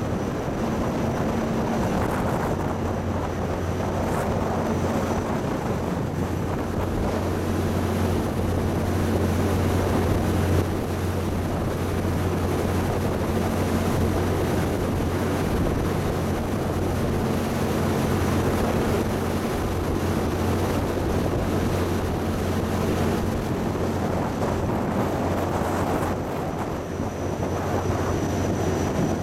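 Steady low drone of a 190-foot water-jet fast support vessel's engines running at speed, with wind on the microphone and the rush of the churning wake.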